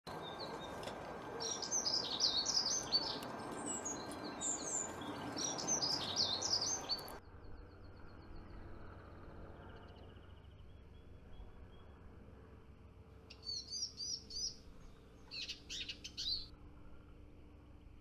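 Eurasian siskin singing a fast, busy twittering song over a steady background noise, which cuts off about seven seconds in. Fainter siskin calls follow, then two short clusters of sharp chirps near the end.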